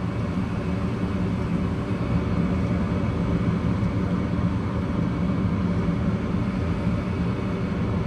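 Gas furnace running in heat mode, its blower fan, induced draft motor and burners together making a steady hum with several low, even tones.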